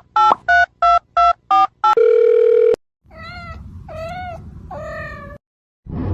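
A quick series of about eight electronic beeps and a held tone, like a phone's keypad and dial tone. Then a cat meows three times, each call drawn out and bending in pitch. A short thump comes near the end.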